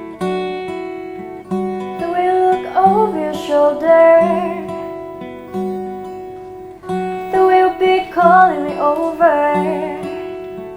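Acoustic guitar playing a steady pattern of plucked chords. A singing voice comes in over it twice, about two seconds in and again about seven seconds in.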